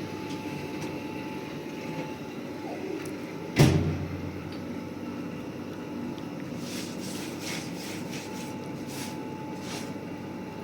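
A single sharp knock about three and a half seconds in, over a steady low rumble, followed later by a few faint ticks.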